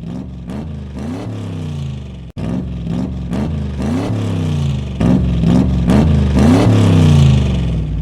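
Car engine revved over and over in quick blips, its pitch rising and falling with each one. The sound breaks off for an instant a little over two seconds in and is louder in the second half.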